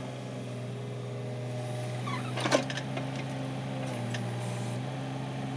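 Mini excavator's diesel engine running steadily as it digs, its note shifting slightly under load, with one sharp knock about two and a half seconds in as the bucket works the stony ground.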